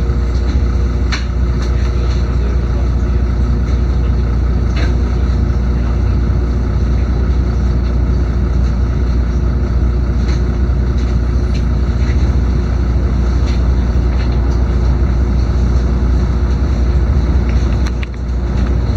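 Diesel engine and running noise of a LiAZ-6213.22 articulated city bus heard from inside the passenger cabin: a loud, steady low drone with a few light clicks. The level dips briefly near the end.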